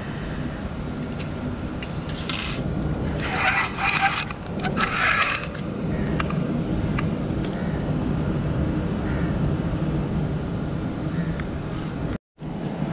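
Handling noise close to the microphone: rubbing and scraping, with three short bursts of scraping between about two and five and a half seconds in, over a steady low hum. The sound cuts out for a moment near the end.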